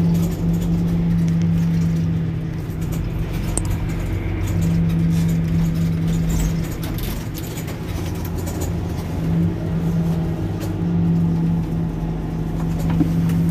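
Mercedes-Benz Citaro C2 Hybrid city bus standing at a stop with its engine idling: a steady low rumble under a steady hum that drops out briefly a few times.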